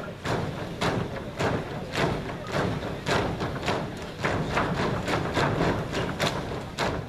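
A large group of dancers in trainers jumping in unison on a stage floor: their landings thud together in a steady rhythm, a little under two a second.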